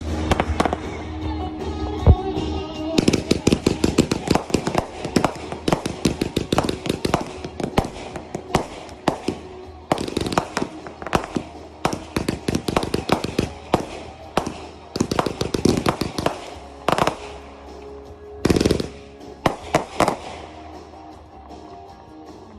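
Consumer fireworks going off in quick runs of sharp bangs and crackles, several a second, with a louder cluster of blasts near the end. Background music plays underneath.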